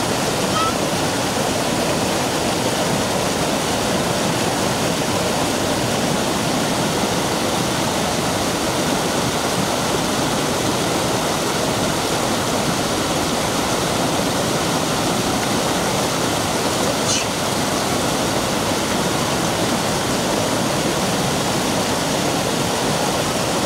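Mountain stream cascading over bare rock: a steady, even rush of water.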